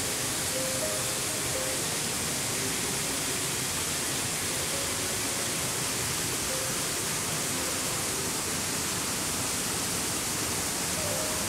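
Steady, even rushing hiss, with a few faint brief tones in the middle pitches now and then.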